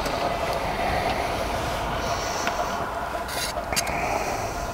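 Electric rotisserie motor of a multi-skewer charcoal-grill rotisserie running with a steady hum. Metal tongs clatter against the skewers about three and a half seconds in as a skewer is lifted off.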